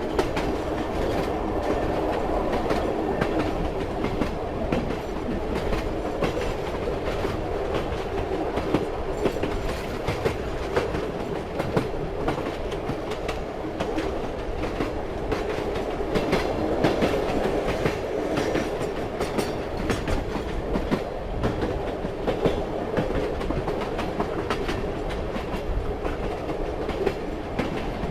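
Train running along the track: a steady rumble with the clickety-clack of the wheels over the rail joints.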